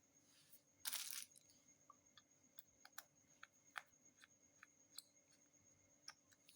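Faint light clicks of a small screwdriver and plastic phone parts while the back-cover screws are put in, with a brief scraping rustle about a second in.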